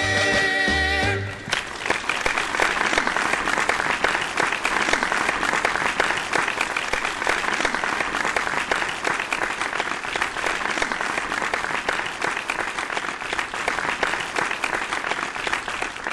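The song's closing chord ends about a second and a half in, then an audience applauds steadily.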